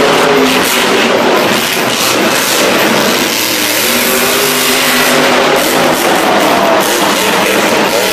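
Monster truck's supercharged V8 revving in the arena, heard over loud rock music from the stadium PA and general crowd noise.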